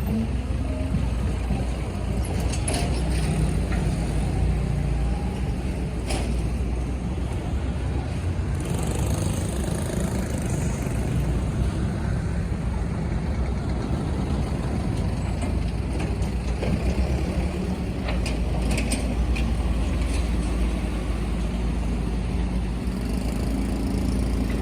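Heavy diesel machinery engine running steadily, with a few sharp knocks and a brief hiss about nine seconds in.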